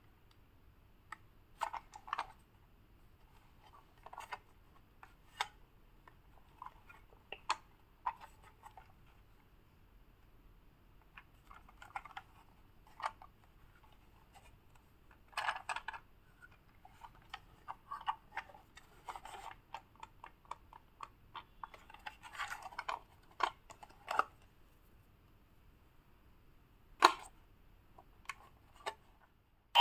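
Plastic toy tank being handled: scattered light clicks, taps and scrapes in irregular clusters with short pauses between them.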